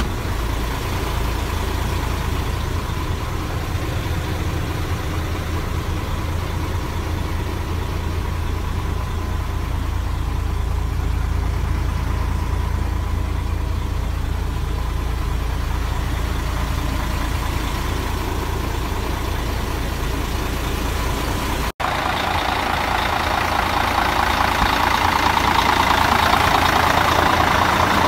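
A Mercedes-Benz Axor 1840 truck's diesel engine idling steadily, heard first inside the cab as a deep even hum. After a sudden cut about three-quarters of the way through, it is heard from outside beside the cab, louder and brighter.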